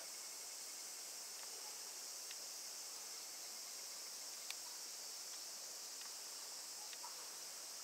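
Steady high-pitched chorus of insects, with a few faint scattered clicks.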